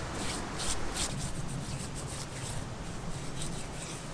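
Hands rubbing and smoothing wet clay over the stones of a stone-and-clay oven, with a few short scrapes in the first second, then steadier rubbing.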